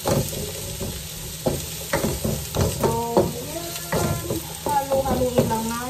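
Diced courgette sizzling as it fries in oil in a non-stick pan, with a wooden spoon stirring it in repeated scraping strokes against the pan. A few short pitched sounds come through in the background partway through and near the end.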